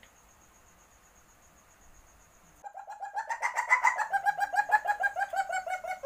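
Civet in heat giving a loud, rapid run of pulsed calls, starting about two and a half seconds in and drifting slightly down in pitch. Before it there is only faint, high, evenly pulsing chirping.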